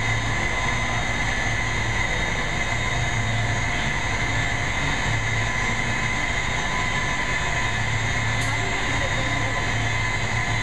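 Steady machinery drone with a constant high whine over a low hum, holding level throughout.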